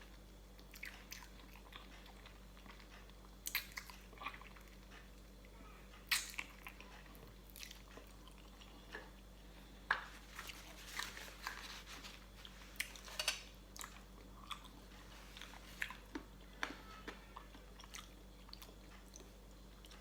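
A person eating papaya salad with chicken feet: irregular crunching bites and chewing, sparse at first and busiest about halfway through.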